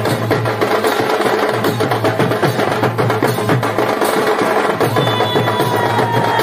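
Loud dance music with fast, dense percussion and a heavy steady bass, played through a truck-mounted DJ sound system of stacked speaker cabinets. A thin, slightly falling tone joins in about five seconds in.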